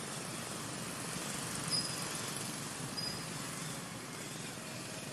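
Steady outdoor background noise, with two brief high chirps about a second and a half apart near the middle.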